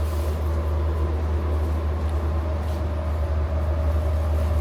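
Steady low rumble of a glassblowing hot shop's gas furnaces, glory-hole burner and exhaust fans running, with an even hiss on top.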